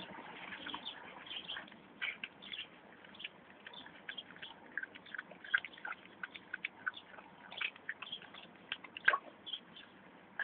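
A run of faint, irregular light clicks and ticks, one louder click about nine seconds in.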